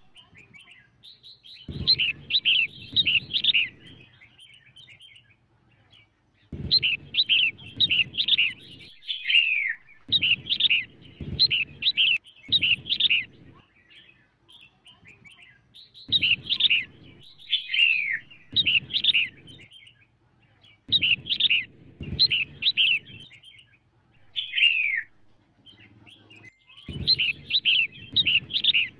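Female red-whiskered bulbul calling: quick runs of bright chirping notes, many sliding downward, in short bursts repeated every few seconds. These are the female calls used to rouse male bulbuls.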